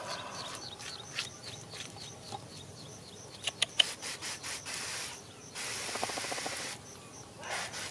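Hands scraping and scooping through wet, muddy soil, a rubbing, gritty sound with a few sharp clicks about halfway through. A faint high chirp repeats a few times a second in the background.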